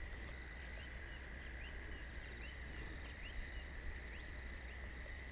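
Faint riverside ambience: a steady hiss with a thin steady tone, and a scattering of faint, short bird chirps.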